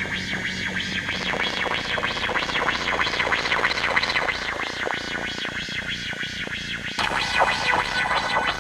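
Synthesized emergency-alert alarm: a harsh electronic tone sweeping rapidly up and down, several times a second, with a change in its lower sound about seven seconds in.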